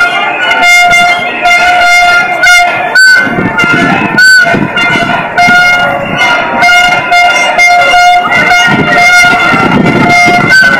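A horn blares over and over: long blasts on one steady pitch with short breaks, over the noise of a marching crowd.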